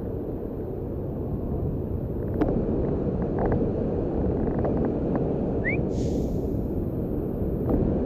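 Steady low rushing noise of a waterfall, with a couple of knocks, one about two and a half seconds in and one near the end, and a short rising chirp just after halfway.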